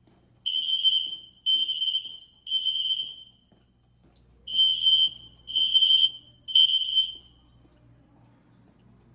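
Fire alarm sounder giving high-pitched beeps in groups of three, each about a second apart, with a pause of about a second and a half between groups: the temporal-three evacuation pattern.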